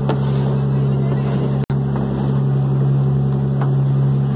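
Fishing boat's engine running with a steady low hum, cutting out for an instant partway through.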